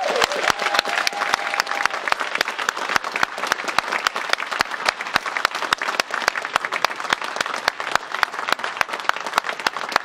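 An audience applauding, many hands clapping densely and steadily, with a short rising cry near the start.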